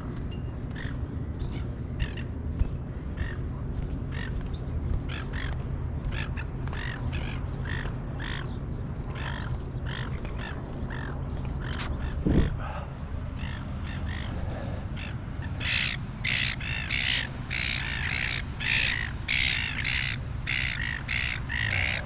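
Gulls squawking loudly and repeatedly, several harsh calls a second, from about sixteen seconds in. Before that, high chirps of smaller birds, broken once by a brief thump about twelve seconds in, all over a steady low rumble.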